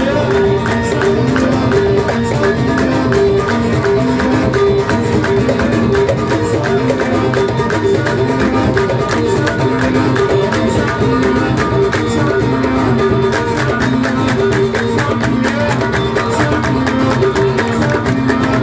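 Loud live music played through a PA system, with no singing: a fast, steady drum beat under a short melodic riff that repeats over and over.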